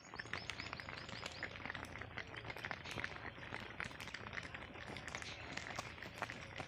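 Small birds chirping and calling over and over, opening with a quick run of repeated high arched notes, with a steady low rumble underneath.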